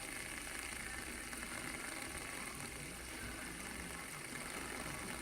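Fidget spinner spinning on a tabletop, its bearing giving a steady whirring hum with a light rattle.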